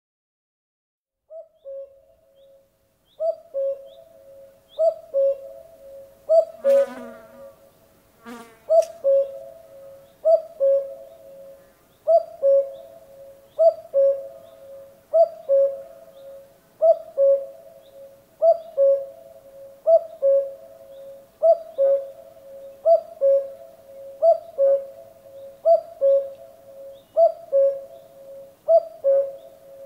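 Common cuckoo calling its two-note "cu-coo", the second note lower than the first, repeated steadily about every second and a half, starting about a second and a half in.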